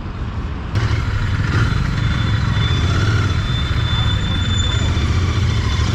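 Motorcycle engine running, getting suddenly louder about a second in and then holding steady.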